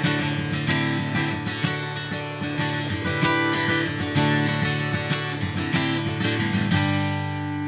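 Background music: acoustic guitar strumming chords, ending on a held, ringing chord near the end.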